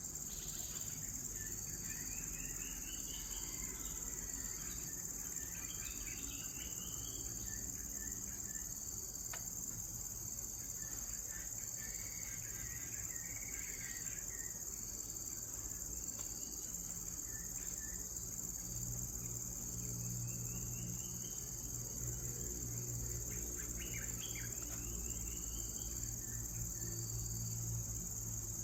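Rainforest ambience: a steady, high-pitched chorus of crickets and other insects, with birds calling now and then, some in quick rising runs of notes. A low steady hum runs underneath and grows stronger about two-thirds of the way through.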